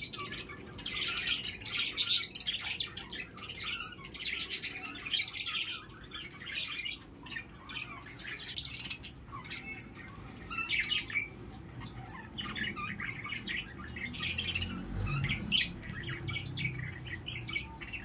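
Caged rose-ringed parakeet calling in a continuous run of short squawks and chirps, several a second, with brief pauses between runs.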